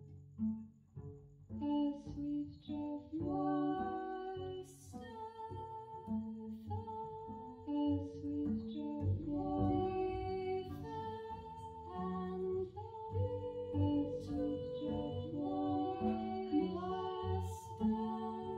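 Female voice singing a slow, winding melody over a plucked upright double bass, played pizzicato.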